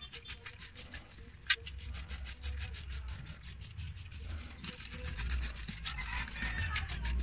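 Hand trigger spray bottle squirted rapidly and repeatedly, a quick even run of short hissing sprays, several a second, as engine cleaner is sprayed over the engine bay. A low rumble grows in the background near the end.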